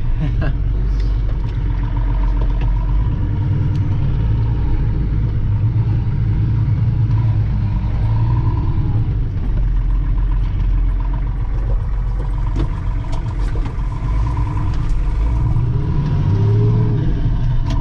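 1966 Ford F-250's engine running steadily as the truck is driven hard, a loud low rumble.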